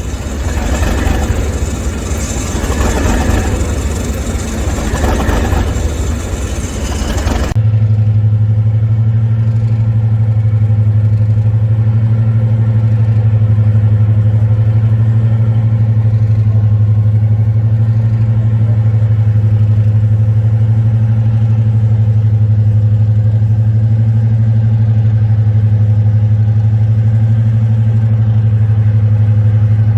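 A loud rushing noise for the first seven or so seconds, then after an abrupt cut a diesel locomotive engine idling with a steady, even low drone.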